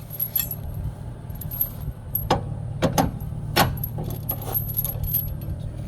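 Weight-distribution hitch chain and hardware clinking and rattling as they are handled, with a few sharp metal clinks near the middle, over a steady low hum.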